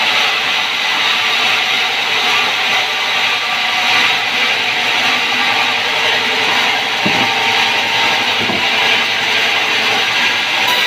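Large sawmill band saw running, its blade cutting lengthwise through thick timber: a loud, steady sawing noise. Two short low knocks come a little after halfway.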